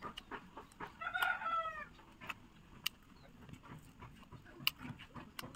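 Scattered clicks and smacks of eating, with one brief high-pitched call lasting just under a second, about a second in.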